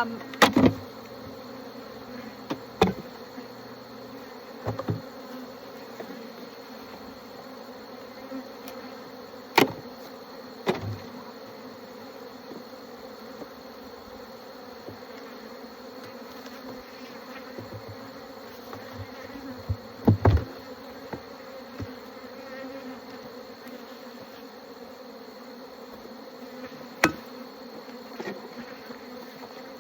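Honeybees buzzing in a steady hum around an open beehive. Scattered sharp wooden knocks and clicks, about seven of them, come from hive frames and boxes being handled as the hive is closed up.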